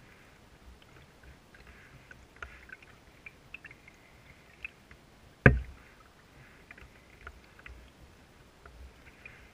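Canoe being paddled on still water: faint dripping and trickling with small ticks of water. One sharp, loud knock about halfway through.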